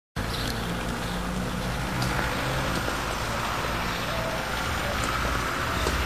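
Steady hum of road traffic with a low rumble, no single vehicle standing out.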